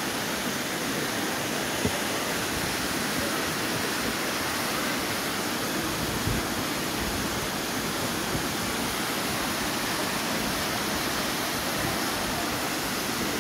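Steady rush of water from a river cascading over waterfalls.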